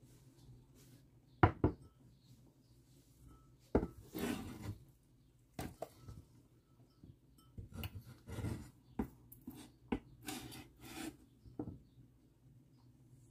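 A kitchen knife blade scraping chopped green onions across a wooden cutting board into a small ceramic bowl, with sharp knocks of blade and bowl on the board. The loudest knock comes about a second and a half in, followed by bursts of scraping and tapping.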